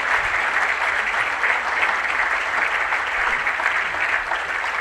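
A large audience applauding, many people clapping at once in a steady, even wash of claps.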